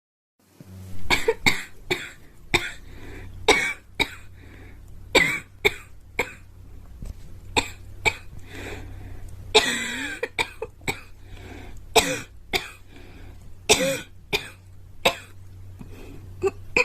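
A girl coughing over and over in short, sharp coughs spaced unevenly, starting about half a second in, with one longer voiced cough of wavering pitch around the middle. A steady low hum sits underneath.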